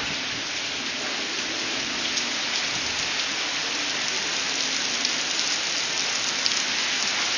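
Heavy rain falling steadily, pattering on the ground and standing floodwater.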